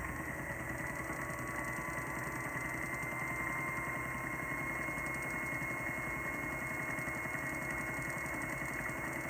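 Rod-building lathe's electric motor running steadily with a high whine, spinning a fishing rod.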